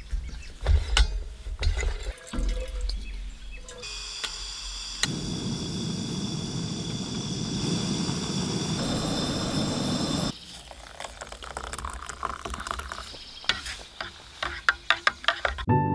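Clicks and handling of metal parts as a camp stove is fitted to a propane canister, then the lit burner hissing steadily for about six seconds. Near the end there are sharp clicks as a spoon stirs in a steel tumbler.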